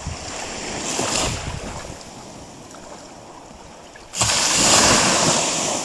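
Small waves washing and lapping in the shallows at the water's edge, with a louder wash setting in suddenly about four seconds in and lasting over a second.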